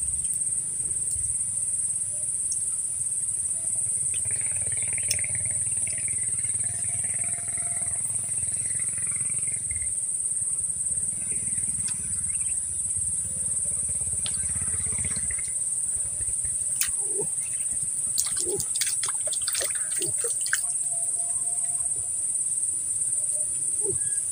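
A steady, high-pitched chorus of insects in the surrounding vegetation, unbroken throughout. A low rumble runs under it for the first fifteen seconds or so, and a few faint clicks come about two-thirds of the way through.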